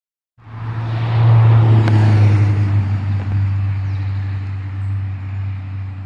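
A motor vehicle's engine: a steady low hum with a rush of noise that comes in suddenly, peaks about a second in, then slowly fades.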